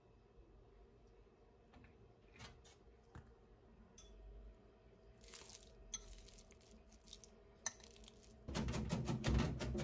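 Avocado being scooped from its skin with a metal spoon, then mashed in a ceramic bowl with a metal potato masher: soft squishing with light clicks and scrapes of metal on the bowl. Near the end a much louder run of quick, even knocks starts.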